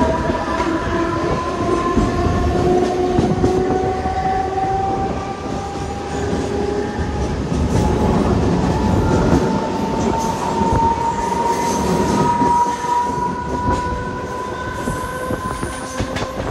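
Mumbai suburban electric local train (EMU) gathering speed: its traction motor whine climbs slowly in pitch over the rumble of the wheels on the rails, with a few sharp clicks near the end.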